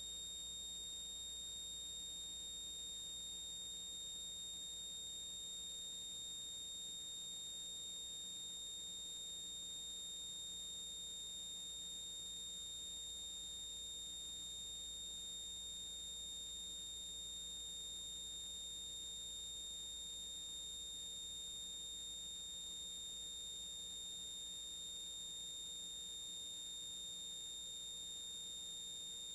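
Steady high-pitched electronic whine with fainter higher tones above it and a low hum beneath, and no voice coming through: the signature of a recording chain picking up only interference noise.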